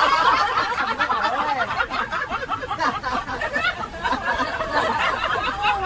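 Several people laughing and chuckling together, with overlapping voices and no clear words.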